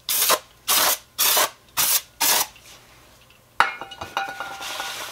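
Aerosol brake cleaner sprayed in five short hisses into a reproduction rear brake drum, then, about three and a half seconds in, a shop towel rubbing and wiping the inside of the drum.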